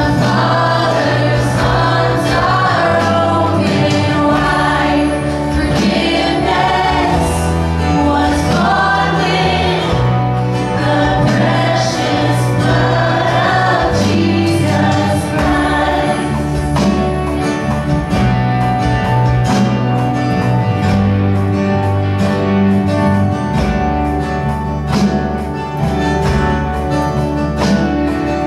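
Live church worship band and singers performing a contemporary worship song: voices over bass, drum kit, electric guitar and keyboard. The singing is strongest in the first half, with steady drum beats through the second half.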